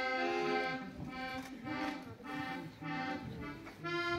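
Piano accordion sounding a run of short held chords, each under a second, with brief breaks between them. Its bellows are being pushed and pulled by a child helper while the player works the keys.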